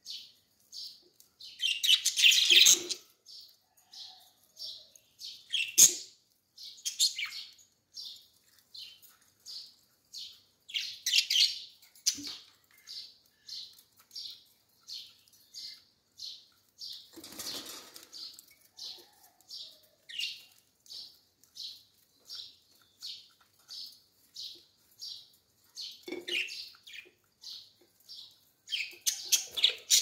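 Budgerigars chirping steadily, about two short high chirps a second, broken by several louder, noisier bursts of calling and wing flapping.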